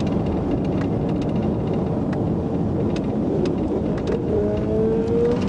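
Road and wind rumble inside a Dodge Charger patrol car travelling at highway speed, with the engine note starting to rise as the car accelerates about four seconds in.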